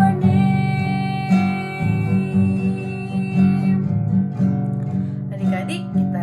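Instrumental music led by a strummed acoustic guitar, with long held chords over a steady rhythmic pulse.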